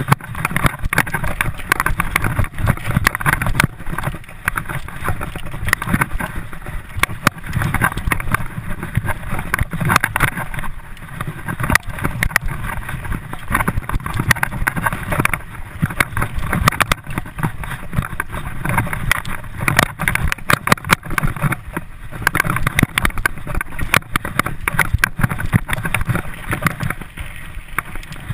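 Mountain bike ridden fast over a rough dirt forest trail: a continual clatter of knocks and rattles from the bike and camera over the bumps, over a low rumble of tyre and wind noise.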